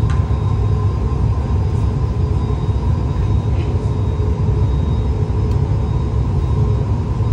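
Steady roar of a glassblowing hot shop's gas-fired glory hole and furnace burners and exhaust hood fans: a loud low rumble with a faint steady whine above it, broken by a few faint clicks.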